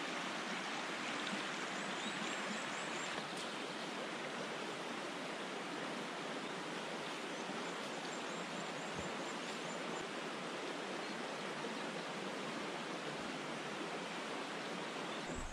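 Steady rushing of a stream's running water, with a few faint high chirps here and there.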